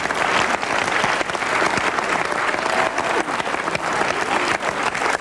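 Studio audience applauding, a dense, steady patter of many hands clapping.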